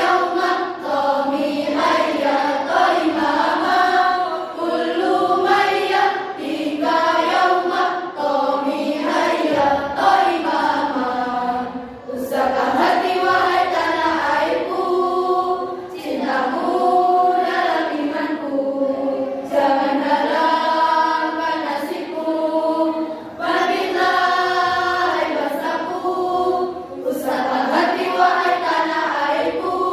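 School choir singing, several voices in parts with no accompaniment heard, in phrases with short breaks between them.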